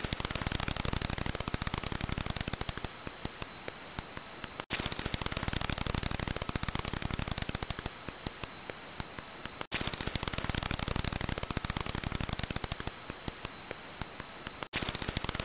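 Brown long-eared bat echolocation calls made audible as a fast train of sharp clicks. The clicks come in dense runs and then thin to slower, evenly spaced ticks. The pattern repeats about every five seconds with a brief break between repeats.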